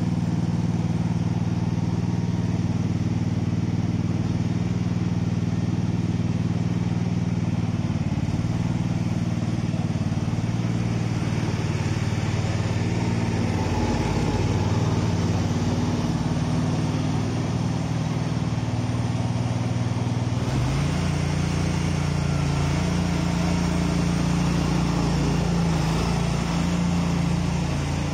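Engine of a small ride-on implement carrier running steadily, its note shifting to a stronger, slightly higher tone about twenty seconds in.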